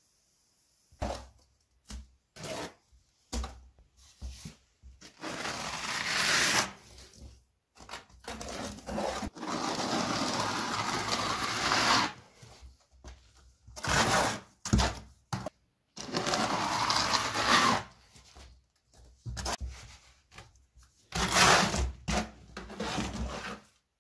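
Hand plastering: a steel trowel scraping and scooping wet cement-lime plaster and smearing it onto a block wall. It comes as a string of short scrapes and longer rubbing smears of two to three seconds, with abrupt gaps of silence between them.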